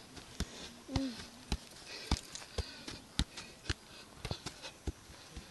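A football being juggled: sharp knocks of the ball off the foot and knee, roughly two a second at an uneven pace.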